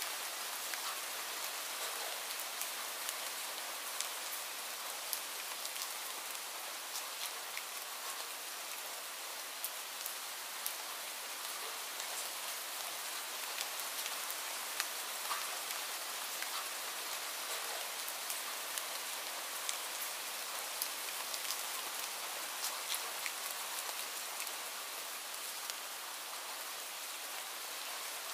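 Steady rain falling on leafy shrubs and grass: an even hiss with frequent sharp ticks of single drops landing close by.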